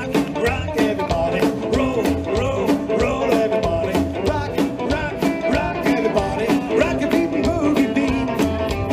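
Live rockabilly band playing: electric guitar lines over upright double bass and drums, with a fast, steady beat.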